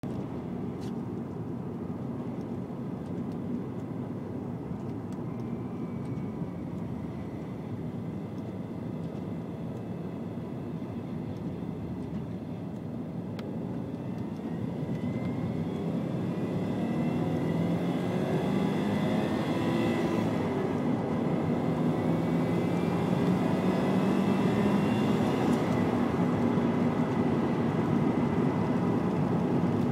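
Subaru Legacy B4 RSK's turbocharged flat-four engine, steady at first, then revving hard through second and third gear: the pitch climbs, drops at the shift about two-thirds of the way in, and climbs again. A rattling, scratching noise comes in near the top of second gear at around 6000 rpm, a fault the owner is trying to diagnose.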